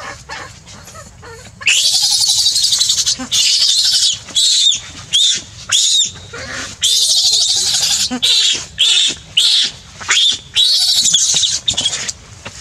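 Infant macaque screaming in distress: a long run of loud, high-pitched shrieks that starts about two seconds in, broken into many short cries with a few brief pauses.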